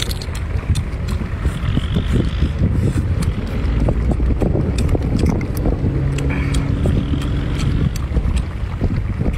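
Wind buffeting the microphone in a steady low rumble, with scattered light clicks of chopsticks and eating. A faint low hum joins about six seconds in and stops after about two seconds.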